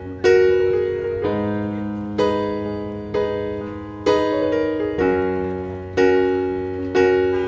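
Background music: piano-like keyboard chords struck about once a second, each ringing out and fading before the next.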